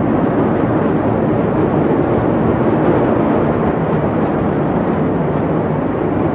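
Steady, loud rushing noise with no distinct bangs or voices: the outdoor sound in a phone recording of a city skyline.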